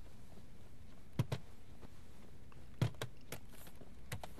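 A few light knocks and clicks, several in close pairs, as laptops are set down on a conference table and people settle into their chairs.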